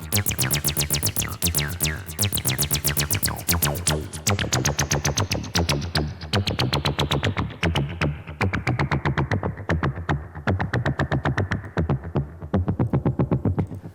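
Distorted TB-303-style acid synth line of fast, evenly repeating notes, run through a distortion plugin. From about four seconds in, the filter slowly closes and the line grows duller, until it stops at the very end.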